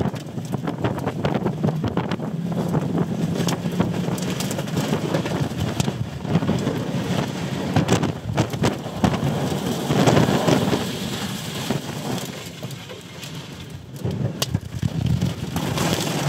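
Tornado-driven rain and wind lashing a car, heard from inside the cabin: a loud, dense rush with a constant rapid patter of hits on the windshield and body. It eases for a couple of seconds about twelve seconds in, then builds again.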